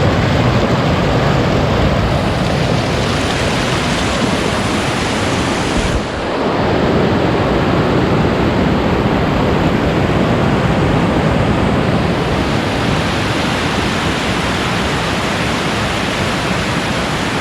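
Steady, loud rushing of a waterfall, with a brief dip about six seconds in.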